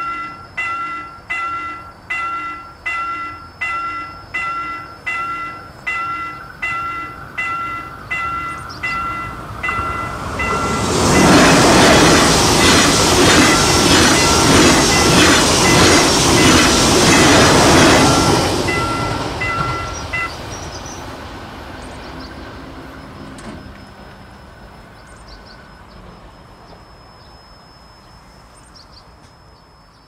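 Level-crossing warning bell ringing, about one and a half rings a second. About eleven seconds in, a KTX-Sancheon train passes through the crossing for some eight seconds, its loud rushing run with rapid wheel beats drowning the bell. The bell stops about twenty seconds in, and the train's noise fades away.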